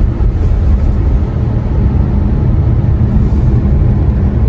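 Steady low rumble of road and drivetrain noise inside the cabin of a moving 2021 Kia Sorento.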